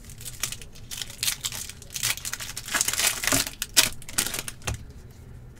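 Foil hockey card pack wrapper crinkling and tearing open, with cards being handled and set on a stack. Dense crackles come in the middle and thin out near the end.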